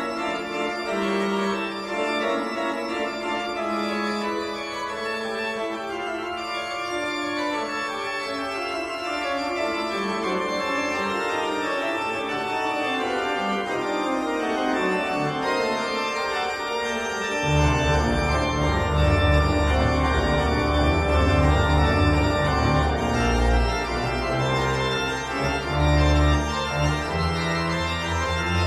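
Instrumental music with sustained held chords; a deep bass line comes in a little past halfway.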